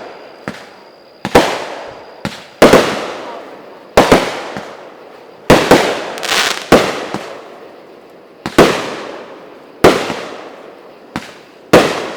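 200-gram consumer firework cakes firing shot after shot: about a dozen sharp bangs, roughly one a second, each trailing off in echo.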